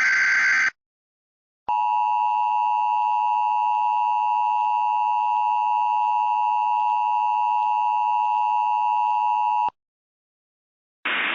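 Emergency Alert System tones: the end of a SAME digital header burst, a second-long warble of data tones, then after a one-second pause the EAS two-tone attention signal (853 and 960 Hz sounded together) holding steady for about eight seconds before cutting off. A steady hiss starts just at the end.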